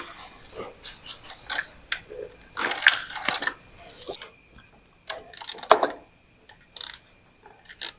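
Hand tools and sockets working on the truck's battery cable bolts: irregular metallic clicks, clinks and scrapes, loudest around the middle.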